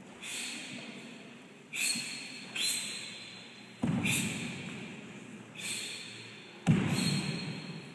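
Sharp, hissing breath exhalations from taekwondo competitors performing ITF patterns, one with each technique, about six in all, each trailing off in the echo of a large sports hall. Two of them, about four seconds in and near the end, come with a heavy thud.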